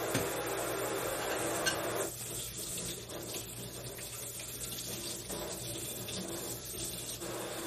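Kitchen tap running into a plastic basin in a stainless-steel sink, shut off about two seconds in. Then quieter splashing and rubbing of hands washing in the water. The tap runs again near the end.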